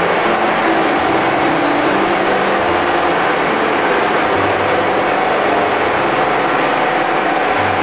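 Engines of a suction dredge boat running steadily and loudly under a dense rushing noise, their low hum shifting slightly in pitch every second or so.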